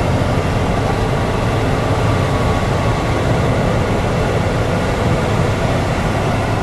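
Steady road and wind noise inside a Jeep Wrangler's cabin while driving: a constant low hum under an even hiss.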